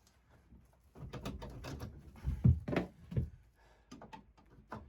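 An HVAC filter cover or grille being yanked at: a run of rattling clicks and knocks with a couple of louder thuds, then a few scattered clicks, as the cover sticks and only partly opens.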